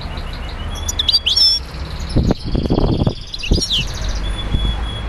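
Small birds chirping, with quick high twitters and slurred calls. A few louder, rough bursts come through from about two seconds in.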